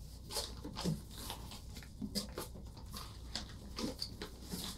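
Fabric blood pressure cuff being wrapped and pressed around an ankle: faint, irregular rustles and crackles of the cuff material under the hands, over a steady low hum.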